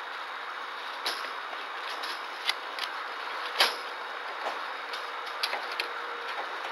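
Scattered light clicks and knocks, about seven, the loudest a little past the middle, as a small monkey clambers about its wire-mesh cage and padded tube; under them a steady hiss.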